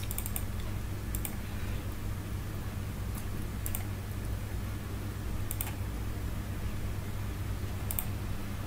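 Scattered clicks of a computer mouse and keyboard, about half a dozen sharp clicks spread over several seconds, over a steady low electrical hum.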